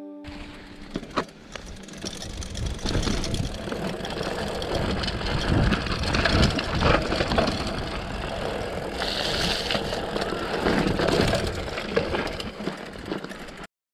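Mountain bike being ridden on a dirt trail, recorded by a GoPro on the bike or rider: rumbling wind noise on the microphone, tyre noise and frequent small knocks and rattles from the bike over bumps. It cuts off abruptly near the end.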